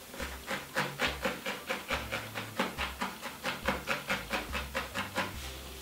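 A barbed felting needle stabbing rapidly and repeatedly through wool into a foam felting pad, about four soft crunching pokes a second, to fix a rabbit's wool nose in place.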